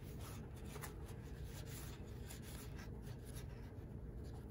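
Faint, irregular scratchy rustling of a paper towel rubbed and twisted around a small plastic worm gear, wiping old grease off its teeth, over a low steady hum.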